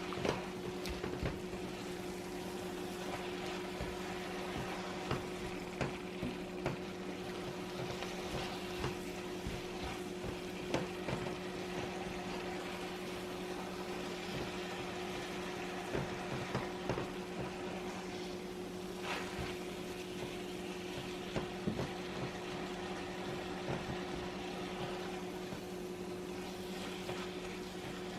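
Spinach cooking down in hot oil with onion and garlic in a pot, sizzling softly with scattered small crackles, over a steady low hum.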